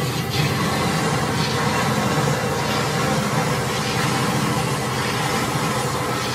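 HEM V140HM60 vertical tilt-frame bandsaw running: a steady mechanical hum with a hiss over it, holding even without change.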